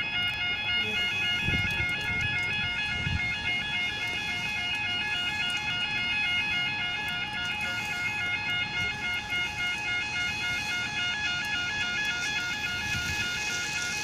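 Level crossing warning alarm sounding continuously as a two-tone warble, its pitch switching back and forth several times a second, warning that a train is approaching.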